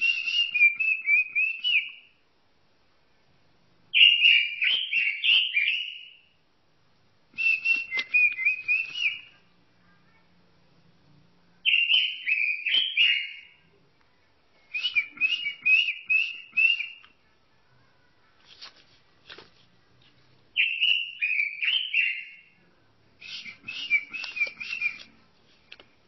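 Robin singing: short, warbling phrases of about two seconds each, repeated every three to four seconds, with sharp clicking notes inside the phrases. One phrase about two-thirds of the way through is fainter.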